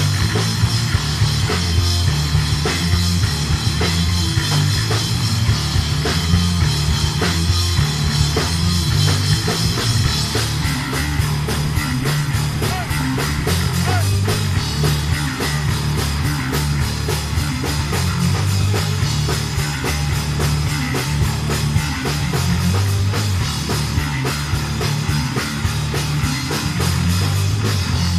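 Rock band playing live: two electric guitars, an electric bass and a drum kit playing a steady, driving beat.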